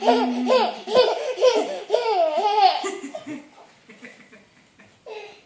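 A young child laughing in a run of quick, high-pitched giggling bursts for about three seconds, then trailing off.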